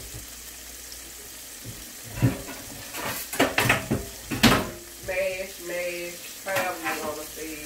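Tomato and coconut cream sauce boiling and sizzling in a cast iron skillet, reducing down. About two seconds in, a run of sharp knocks and clatters cuts through it.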